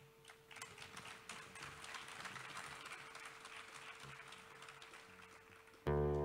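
Faint hiss with scattered light taps and a thin steady hum, then near the end an amplified guitar chord is struck and rings on, loud and sustained.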